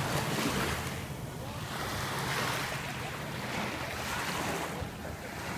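Small sea waves breaking and washing up a sandy shore, the surf rising and falling in surges every couple of seconds.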